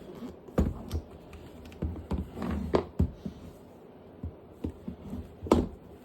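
Irregular clicks, taps and light knocks with some rustling, from packaging being handled and opened by hand; the sharpest knocks come about half a second in, just before 3 seconds, and near the end.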